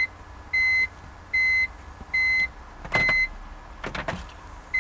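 BMW E46 dashboard warning chime beeping with the ignition on: short, clear, high-pitched beeps about every 0.8 seconds. They pause after about three seconds while the ignition key clicks two or three times as it is cycled to prime the fuel pump, then resume near the end.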